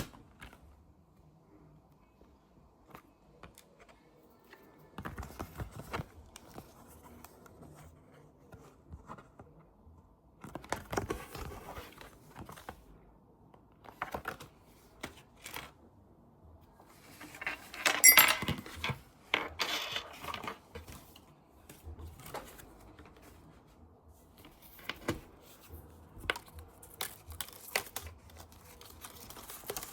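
Rustling and small clicks and clatters of objects being handled, with a louder crinkling rustle about eighteen seconds in.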